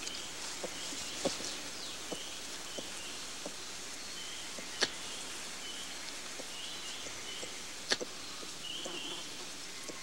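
Forest ambience: a steady hiss with short high chirps repeating every half second or so, broken by a scatter of sharp clicks, the loudest about five and eight seconds in.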